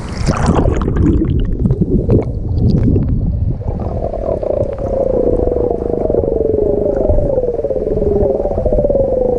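River water heard with the camera submerged: a muffled, low rushing with the high sounds gone. From about four seconds in, a wavering droning tone runs over it.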